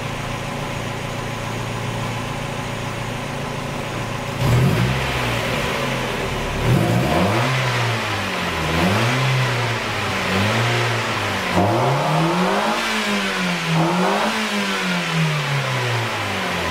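Mazda Miata's four-cylinder engine idling steadily, then free-revved several times from about four seconds in, each rev rising and falling back. It is a test after an oil change with fresh full-synthetic oil; the engine is running well.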